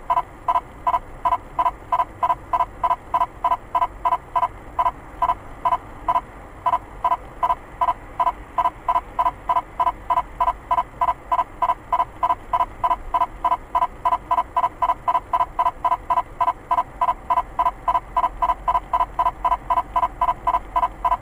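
Car radar detector alarm beeping rapidly and evenly, about two and a half two-tone beeps a second, signalling that it is picking up a police speed radar.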